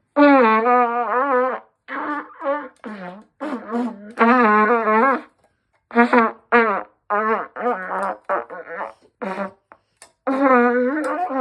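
A tune made of brassy, trumpet-like fart sounds: a string of buzzing notes of wavering pitch, some long and many short. The last note drops in pitch at the very end.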